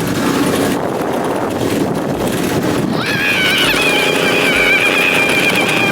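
Go-kart ride noise: a steady rush of wind and engine on the microphone. About halfway through, a high, wavering squeal starts and holds for roughly three seconds.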